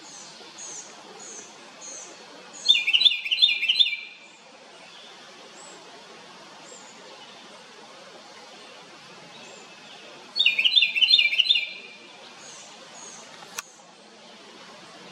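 House wren giving two loud bursts of rapid, chattering song notes about seven seconds apart. Softer high chirps repeat between them, and there is one sharp click near the end.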